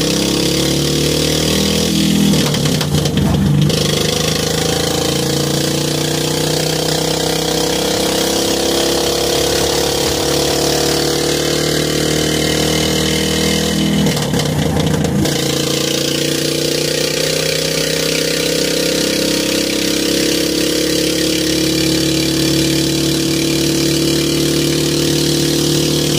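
Duromax 440 cc single-cylinder engine running hard through a short 10-inch header, propelling a small car. Its pitch slowly climbs, with two brief breaks, one about two to three seconds in and another about halfway.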